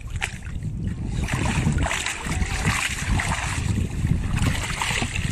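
Seawater splashing and sloshing as a ground-cage trap net is hauled and handled in the shallows, with an uneven low rumble underneath.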